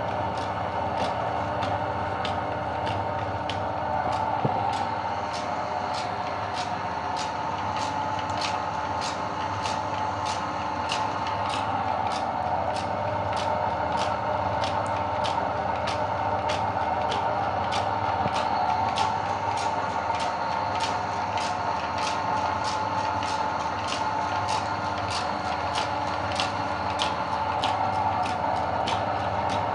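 Electric meat grinder running steadily, its motor humming, with a sharp regular click about one and a half times a second.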